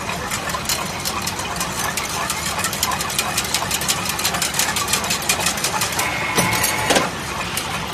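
Chain link fence machine running, a steady mechanical clatter with many rapid clicks as the zigzag wire is fed through. Near the end comes a louder stroke of the machine with a brief ringing tone.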